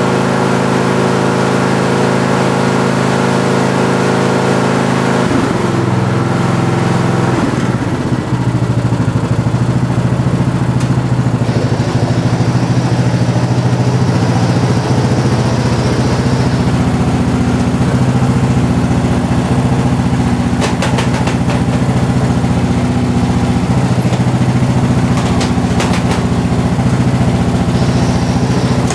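Craftsman riding lawn tractor's engine running steadily while the tractor is driven along. The engine note shifts about six seconds in, and a few light clicks or rattles come in the second half.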